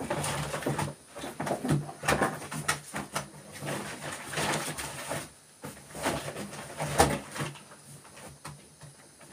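Someone rummaging for a piece of wire: irregular clattering, rustling and knocks of objects being moved about, with one sharp knock about seven seconds in.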